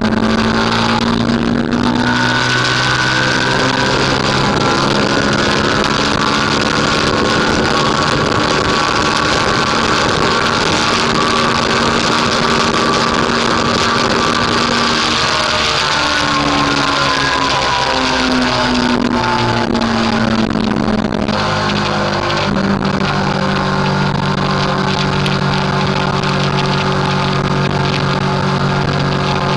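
Motorcycle engine running at highway speed under a heavy, steady rush of wind noise. The engine note holds steady, changes pitch about two seconds in, and glides and settles again in the second half.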